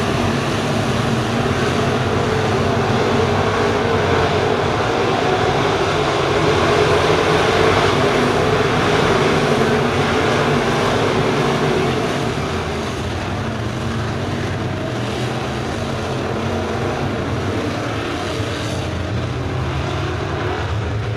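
A pack of FASTRAK crate late model race cars running flat out around a dirt oval, their crate V8 engines blending into one steady, continuous din. It swells loudest around the middle, then eases off a little after about twelve seconds as the pack moves away.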